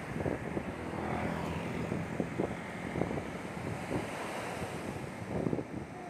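Small waves breaking and washing up a sandy beach, with wind buffeting the microphone.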